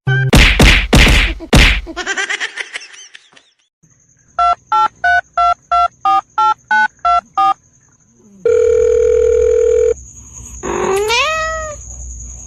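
A loud clatter of several sharp knocks, then a run of about ten short, evenly spaced electronic beeps, like a telephone's tones. A steady electronic tone follows for about a second and a half, and near the end comes a short rising call.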